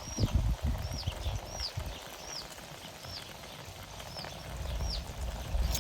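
A bird calling over and over, a short rising-then-falling chirp about every two-thirds of a second, over a low outdoor rumble, with a few dull thumps in the first second.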